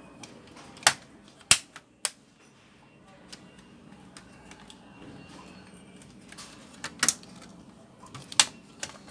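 Plastic snap-fit clips of a laptop's palm-rest casing clicking into place as it is pressed down by hand. The snaps are sharp: a cluster of three or four about a second in, and a few more near the end.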